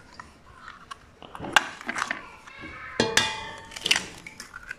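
Eggs being cracked against the rim of a stainless-steel stand-mixer bowl: sharp taps of shell on metal, about a second and a half in, at three seconds and near four seconds, the one at three seconds leaving a brief metallic ring.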